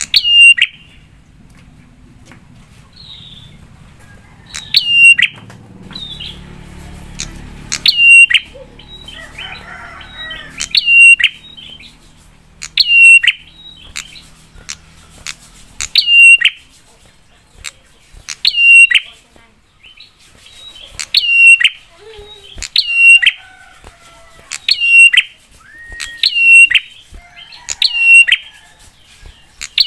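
Prinia (prenjak) giving a loud, sharp call over and over, about one call every two seconds, each a quick downward-sliding note ending in a short hook.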